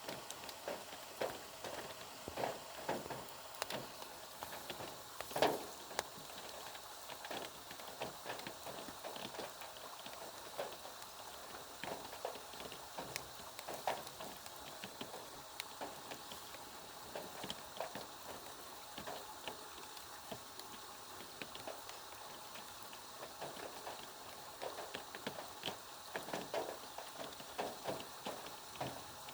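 Rain falling: a steady hiss with many irregular drops tapping and splattering on a surface.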